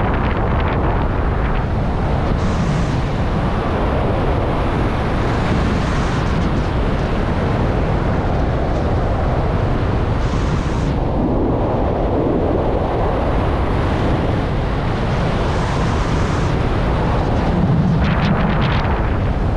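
Loud, steady rush of airflow buffeting the microphone during a fast speed-flying descent, a deep rumbling wind noise that swells and eases in gusts.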